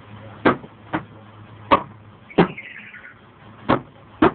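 Six sharp knocks or taps at uneven intervals, each short and sudden.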